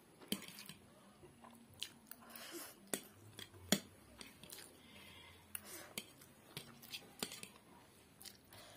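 A person chewing mouthfuls of masala instant noodles and boiled egg, with irregular sharp clicks and smacks.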